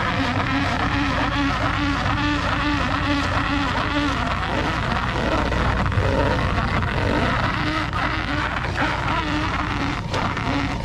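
Crab boat engine and pot hauler running steadily as a crab pot line is pulled up through the davit block, with a low hum and a whine that pulses about twice a second, pausing for a few seconds in the middle.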